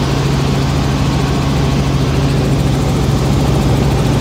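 Helicopter engine and rotor noise heard from inside the cabin in flight: a loud, steady drone with a strong low hum.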